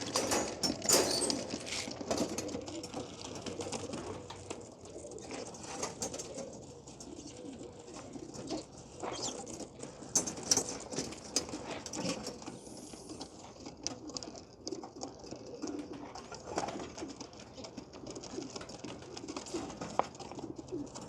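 Birmingham roller pigeons cooing around their trap, with scattered short clicks and rustles throughout.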